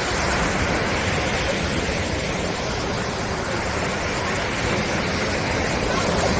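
Surf washing onto the beach: a steady rush of waves with a gentle rise and fall.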